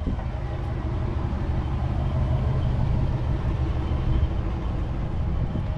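A car engine running close by: a steady low rumble.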